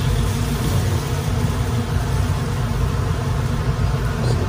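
Steady low rumble of kitchen stove noise, unbroken and even, while a wok of spice paste and a little water cooks on the hob.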